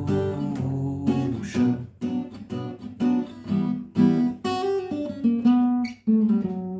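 Acoustic guitar strummed without singing: a run of chords, several strokes a second, as the accompaniment closes. A last chord is struck about six seconds in and left to ring.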